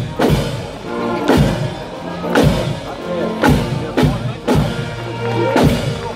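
A marching band with drums plays a march, with a bass drum struck about once a second under held melody tones.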